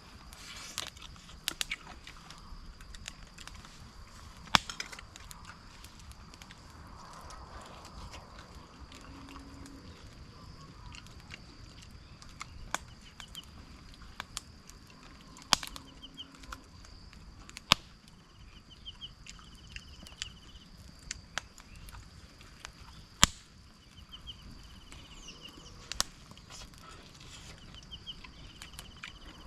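Forest ambience: a steady high-pitched whine, with short rapid chirping trills from about twelve seconds in and scattered sharp clicks, the loudest around four and a half, fifteen and a half, eighteen and twenty-three seconds in.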